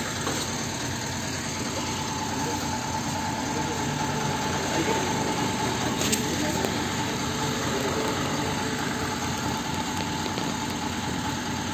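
A vehicle engine idling steadily, with a steady higher-pitched hum running over it.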